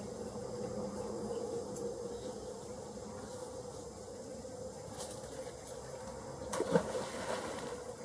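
A steady low buzzing hum, with a brief knock and rustle about seven seconds in.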